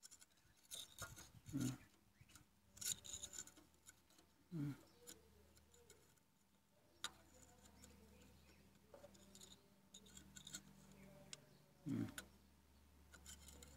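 Faint scraping, rubbing and light ticks of a steel caliper being worked against a diesel fuel injector and its spring while the injector height is measured.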